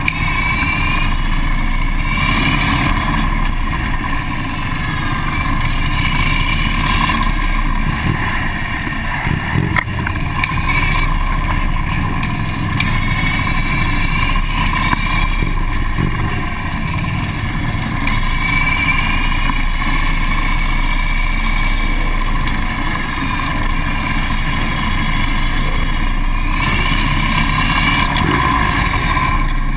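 Harley-Davidson police motorcycle's V-twin engine running beneath the onboard camera at low speed through a cone course, its pitch rising and falling again and again with the throttle.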